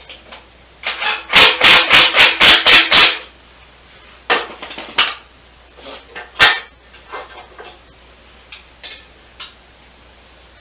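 Hand tools working metal on the engine and transmission assembly: a quick run of about eight sharp metallic strokes, then a few scattered clinks and knocks.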